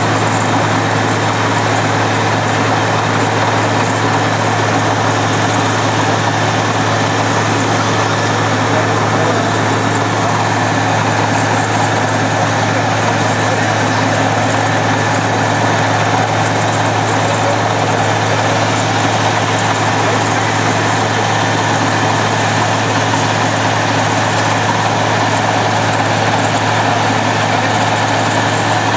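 Heavy diesel engine of a water-well drilling rig running steadily at constant speed: a deep, even hum under a wide noisy hiss that does not change.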